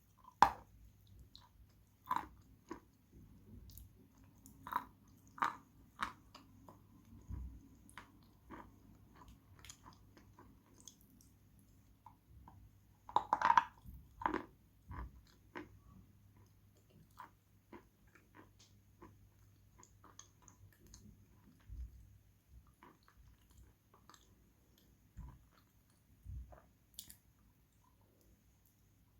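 Close-miked chewing of crunchy Khrapovsky eating chalk with Astana 2 paste: irregular crisp crunches and small wet clicks, with a louder burst of crunching around the middle.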